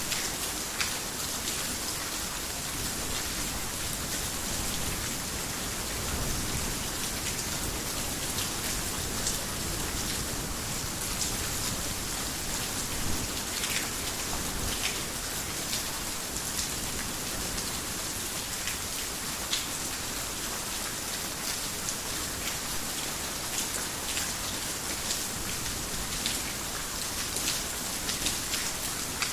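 Heavy rain falling steadily on a roof: a dense, even hiss with many sharp individual drop ticks scattered through it.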